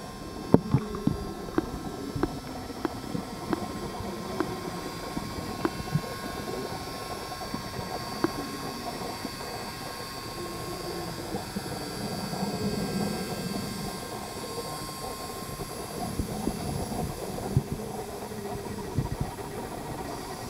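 Muffled underwater sound through a submerged camera in a pool: low rumbling with scattered clicks and knocks. Faint steady whines come from the RC model submarine's electric drive running.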